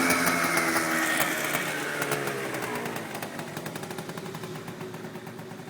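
Aprilia SR 50 scooter's tuned 50cc two-stroke engine with an Arrow exhaust, its revs falling away after a rev and settling low, with a fast crackle from the exhaust. The sound fades steadily.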